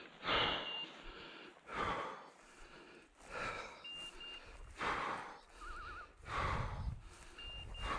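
Heavy, regular breathing of a person walking uphill through tall dry grass, one loud breath about every one and a half seconds, with the grass rustling underneath. Short high electronic beeps come in pairs three times, and a brief warbling tone comes just before the six-second mark.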